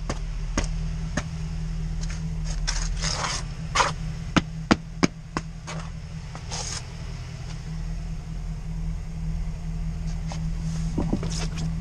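A work boot being knocked and scraped to get dog poop off its sole: a run of sharp knocks with a few short scrapes, mostly in the first half. Under it runs the steady hum of the truck's engine idling.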